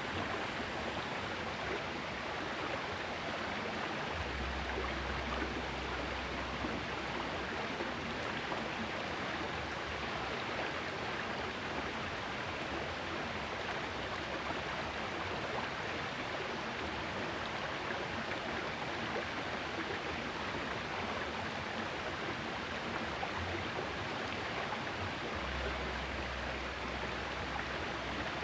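Small river's water rushing steadily, a continuous even hiss of flowing current, with two brief stretches of low rumble underneath, about four seconds in and near the end.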